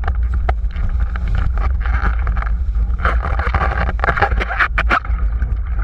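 Heavy wind rumble on a boom-mounted camera's microphone as a windsurf board planes fast over choppy water, with the hiss of spray and short sharp knocks of the board striking the chop. The hiss swells about two seconds in and again from about three to five seconds.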